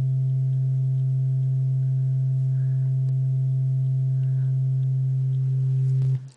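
Steady low sine-wave test tone played through a breadboard class B transistor amplifier with op-amp negative feedback, with two faint higher overtones above it; it cuts off suddenly near the end. The near-pure sine shows the feedback loop correcting the class B stage's crossover distortion.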